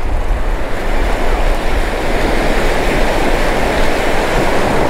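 Ocean surf washing in around the shallows and breaking, a steady loud rush of water close to the microphone.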